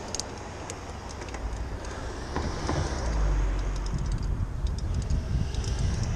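Wind rumbling on the microphone of a camera riding along on a bicycle, swelling about three seconds in, with many light, irregular clicks and ticks over it.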